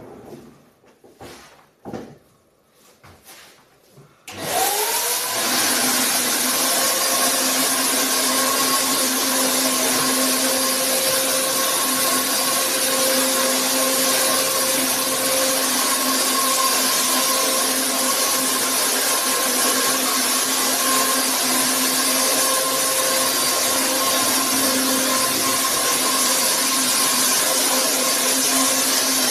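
A few knocks as the sofa is handled, then about four seconds in an electric insecticide fogger's motor starts, spins up and runs steadily with a rushing blower noise and a steady hum.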